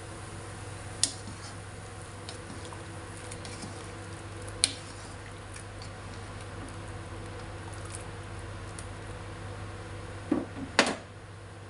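Broth with small beef meatballs boiling in a pan, a steady bubbling patter. A ladle knocks against the pan about a second in and again past four seconds, and there is a louder double knock near the end.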